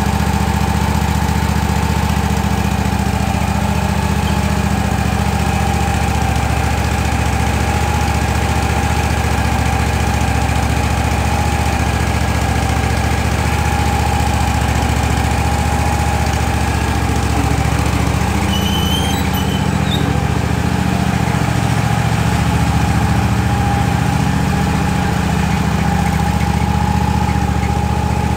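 Tractor engine running steadily, with a steady higher tone above the engine note; the engine note shifts from a little past halfway through.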